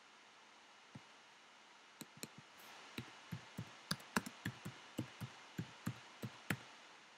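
Typing on a computer keyboard: a lone keystroke about a second in, then a run of some sixteen keystrokes at about three to four a second, starting about two seconds in.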